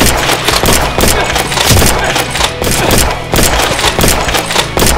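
A rapid, irregular volley of gunfire-like shots during a Nerf blaster fight, over background music with a heavy bass line.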